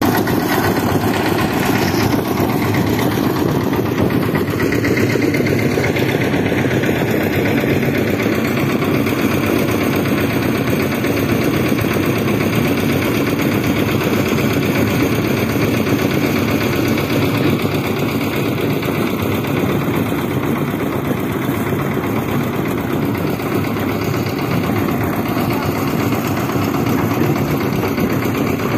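Engine of a portable drum concrete mixer running steadily, with a fast, even pulse.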